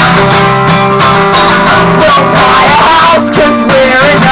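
Acoustic guitar strummed through a live song, with some wordless singing over the chords.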